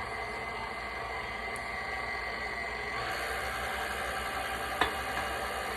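Electric mixer running at low speed, beating cake batter with a steady whir. A single sharp click sounds near the end.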